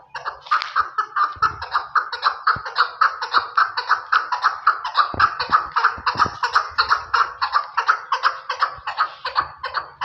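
Chukar partridge calling: a rapid, unbroken run of short, harsh repeated notes, about six a second.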